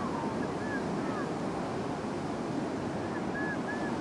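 Steady rushing of fountain jets spraying into their basins, with faint voices of people in the distance.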